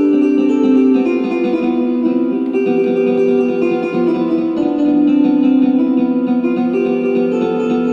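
Background music: plucked acoustic guitar playing a slow line of held notes.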